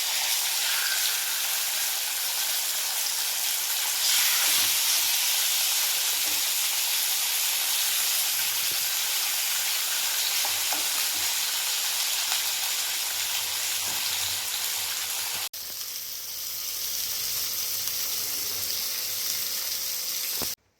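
Masala-coated karimeen (pearl spot fish) shallow-frying in a little oil: a steady sizzle. It gets louder about four seconds in, breaks off briefly past the middle and goes on a little quieter, then stops abruptly just before the end.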